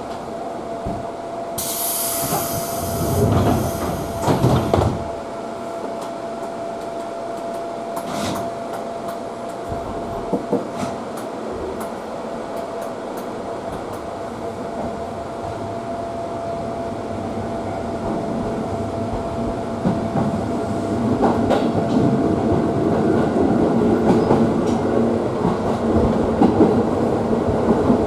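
An electric commuter train running, heard from inside the car: a steady rumble of wheels on rail with a thin steady tone and scattered clicks of rail joints. A brief hiss comes about two seconds in, and the rumble grows louder over the last third.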